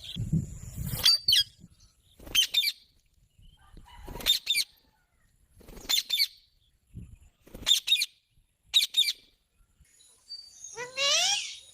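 Green parrot giving short, sharp, shrill calls about every one to two seconds, then a longer call that rises in pitch near the end. There is a low rumble in the first second.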